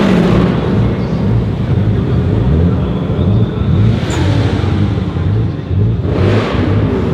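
A performance car's engine running loudly with a low, uneven pulse about twice a second, and short surges of revs right at the start and again about six seconds in.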